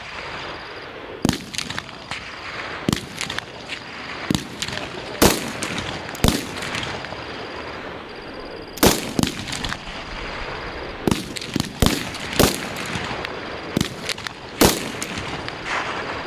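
Live-fire rifle shots at a firing range: sharp cracks at irregular intervals, sometimes two or three in quick succession, from several rifles firing.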